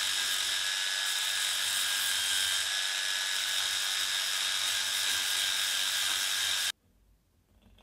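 Electric narrow-belt power file running with its belt grinding a cast metal part: a steady high whine over a rasping hiss, cutting off abruptly about a second before the end.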